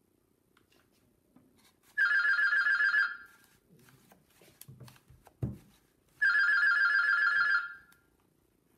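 Telephone ringing twice, each ring a rapid trilling burst of about a second to a second and a half, with a pause of about three seconds between them.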